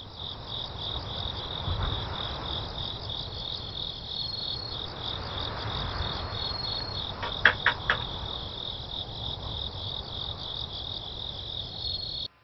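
Crickets chirping steadily, pulsing about four times a second, over a low rumble. About halfway through come three quick, sharp knocks.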